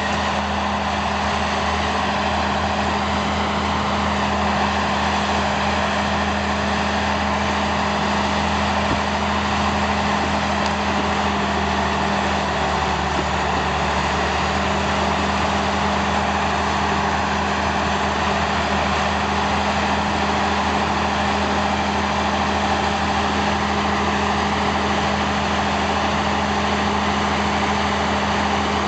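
The diesel engines of an Allis-Chalmers HD-11 crawler and a Caterpillar D6 dozer run steadily, pulling as the two machines push a pile of dirt and brush together.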